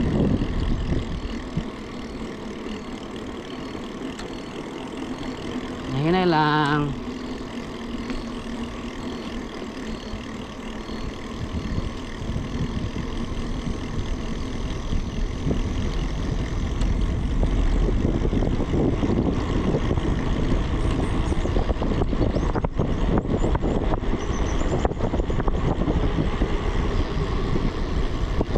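Wind buffeting the microphone and tyre rumble as a bicycle rolls along a paved road, growing louder and rougher past the halfway point. About six seconds in, a brief wavering call sounds once over the noise.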